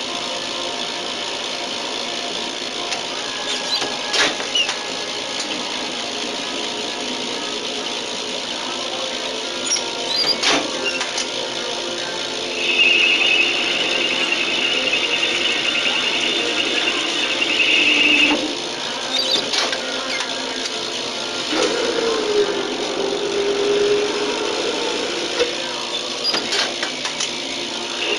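Capstan lathe running and cutting metal, with steady machine noise and a few sharp knocks as the turret tools are brought to the work. About halfway through, a high steady squeal from the cutting lasts about five seconds.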